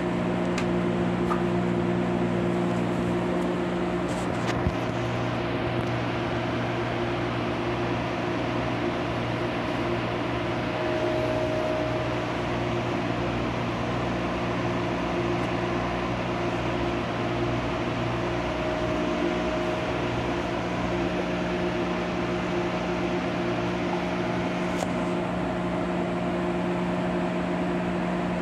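Steady cabin hum of an MTR Airport Express CAF train carriage: several constant tones over an even wash of machinery and ventilation noise, with no change in level.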